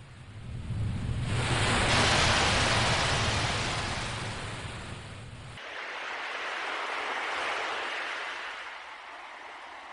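Sea waves washing in and ebbing: one large swell of surf building from about a second in and fading, then a smaller one, with a low rumble under the first wave that cuts off abruptly partway through.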